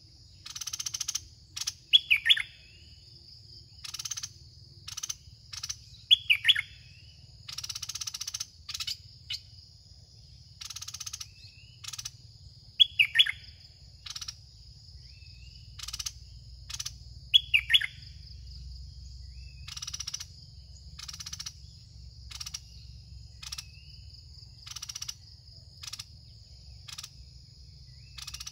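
Songbirds calling around a caged decoy bird: many short repeated calls, with a louder downward-sweeping call every four to five seconds. A steady high-pitched drone runs underneath.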